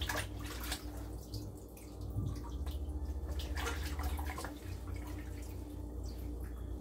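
Water splashing and dripping in short irregular bursts as raw chicken pieces are lifted and rubbed by hand in a pot of water in a sink, over a low steady hum.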